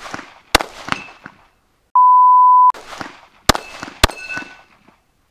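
Glock pistol shots, two about half a second apart, then two more half a second apart and a last one at the very end, with a thin metallic ring after some of them from hit steel plates. Between the pairs, about two seconds in, a steady electronic beep lasts under a second.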